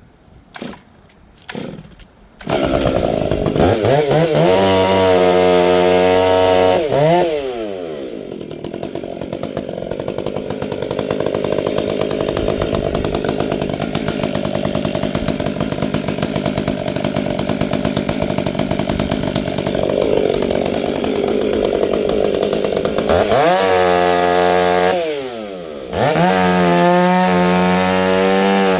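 Two-stroke chainsaw sputtering twice, then catching and revving to full throttle. It settles into a long, steady, lower-pitched run under load, cutting through pine wood, and revs up and down twice more near the end.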